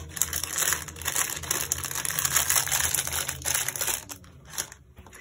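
Clear plastic bag crinkling and rustling as hands push a small string of LED lights back into it. The crackling dies down about four seconds in.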